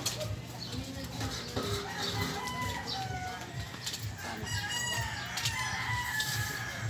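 Chickens clucking, with a rooster crowing in the second half.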